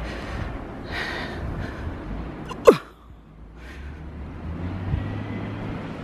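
Wind rumbling on the microphone and rustling as it brushes through snow-laden evergreen branches, with one brief, loud sound about midway that drops sharply in pitch. A low, steady rumble follows in the second half.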